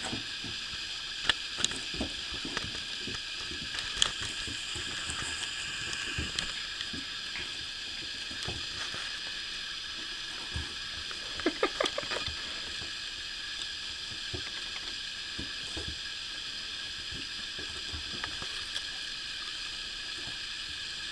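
Four-week-old puppies wrestling on carpet: scattered soft taps and scuffles, with a brief flurry of small noises about twelve seconds in, over a steady hiss.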